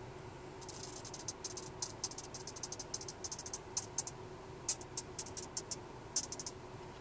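Small RC servo driven by a UHF receiver, chattering in rapid irregular clicks in clusters with short pauses, over a faint steady hum. The servo twitches as the receiver's signal breaks up under the camera's radio noise.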